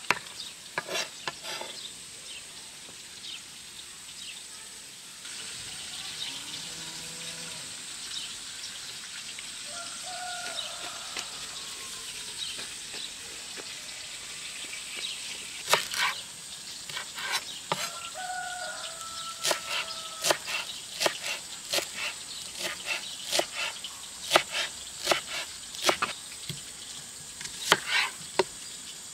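Knife chopping vegetables on a cutting board: sharp, irregular strikes, a few at a time at first, then a quicker run of strikes through the second half.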